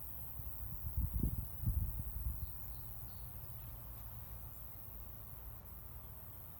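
Faint insect sounds: a steady high hiss with three short chirps about two and a half seconds in. Low rumbling bumps on the microphone about a second in are the loudest thing.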